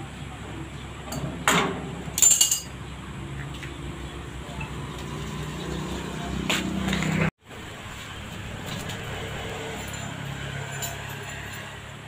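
A few sharp metallic clanks and clinks of hand tools against steel parts, the loudest about two seconds in, over a steady low hum. The sound cuts out for a moment about seven seconds in.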